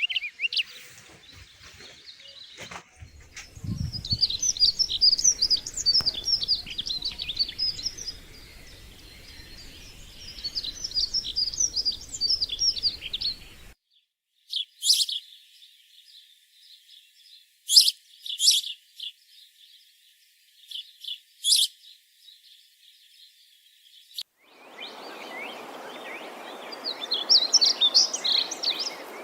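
Small birds chirping and twittering in quick runs of high notes. About halfway the sound cuts abruptly to a thinner stretch of a few short chirps. A few seconds before the end, a steady rushing noise comes in under the birdsong.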